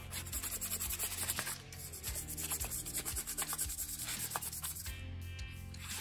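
A small brush scrubbing rust-dissolver gel over the rusty metal parts of a disassembled pocket knife: repeated scratchy back-and-forth rubbing strokes. Soft background music runs underneath.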